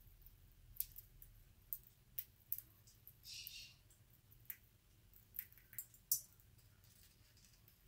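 Canary-winged parakeet cracking black-oil sunflower seeds in its beak: sharp, irregular clicks as the hulls split, about eight of them, with a short soft rasping sound a little past three seconds in.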